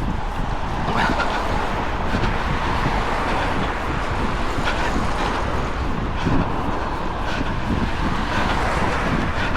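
Wind buffeting a small action camera's microphone, mixed with a steady rush of road traffic.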